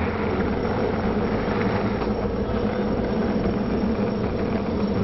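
A large skateboard's wheels rolling steadily over street asphalt, a continuous rolling noise with a low hum.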